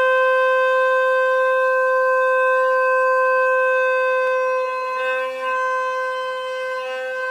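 Shofar sounding one long, steady held note that slowly fades toward the end. A few short, fainter notes of another shofar come in briefly in the middle and near the end.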